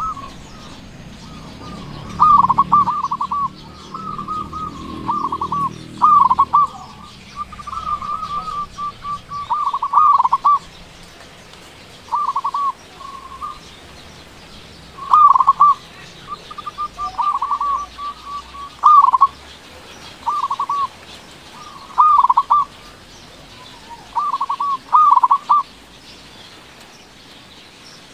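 Zebra dove (local perkutut) cooing in more than a dozen short phrases, each a rapid run of trilled, rolling coo notes, with brief pauses between phrases. It falls silent a few seconds before the end.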